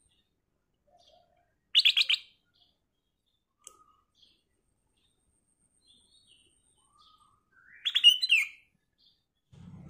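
Ruby-throated bulbul (kutilang emas) singing two short, bright phrases: a quick run of notes about two seconds in, and a louder phrase of rising and falling notes near the end.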